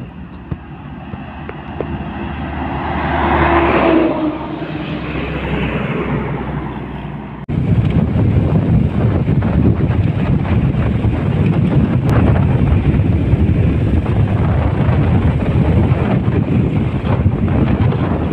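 A bus approaches and passes by on the road, its sound building to a peak about four seconds in and then fading. After an abrupt cut, loud steady wind buffeting on the microphone and road noise from riding on a moving vehicle.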